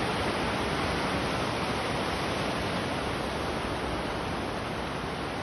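Steady rushing of river water, an even hiss with no breaks that fades slightly toward the end.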